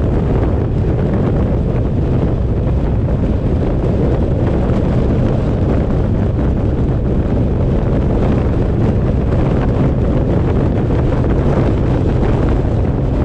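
Steady wind noise buffeting the microphone of a camera on a moving vehicle, over a low road rumble from the drive.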